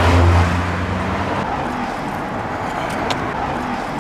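Road traffic: a vehicle engine's low hum that fades after about a second and a half, then a steady rush of passing traffic.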